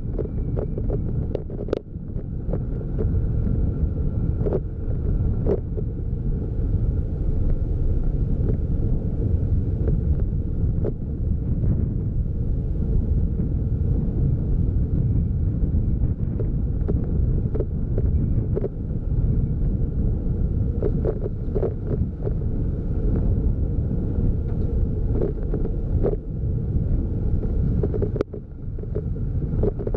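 A vehicle driving along a road, heard as steady low rumble with wind buffeting the camera's microphone; a few sharp knocks from bumps come through, one near the end.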